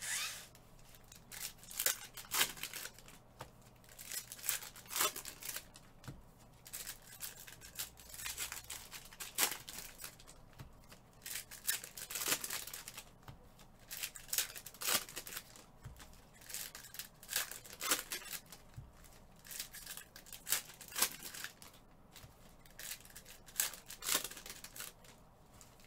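Plastic or foil packaging crinkling and tearing in repeated short, sharp bursts, the rustle of wrapped card packs or boxes being handled.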